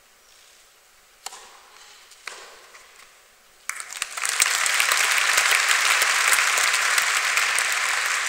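Two sharp tennis-ball strikes about a second apart, then the crowd breaks into applause about three and a half seconds in, and the clapping keeps going loud.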